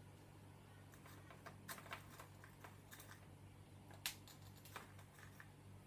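Faint light clicks and rustles of cupcakes in paper cases being handled and pushed onto toothpicks in floral foam, with one sharper tap about four seconds in.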